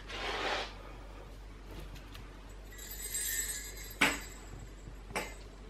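A short rustle, then a brief light clinking jingle about three seconds in, followed by two sharp knocks about a second apart.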